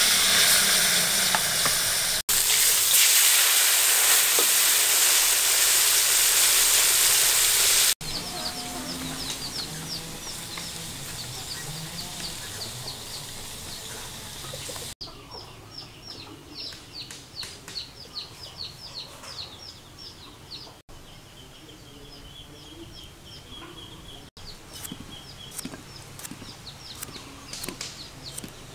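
Fish frying in hot oil, a loud steady sizzle that cuts off about eight seconds in. After that, chickens clucking with repeated high cheeps.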